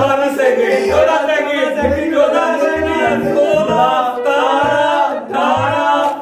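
Music: a song with singing over a steady low beat of about one thump a second.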